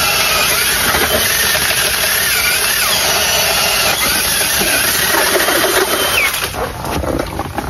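Cordless drill driving an ice auger, its motor running under load as the bit grinds steadily through lake ice. About six and a half seconds in the noise drops away as the auger breaks through to water.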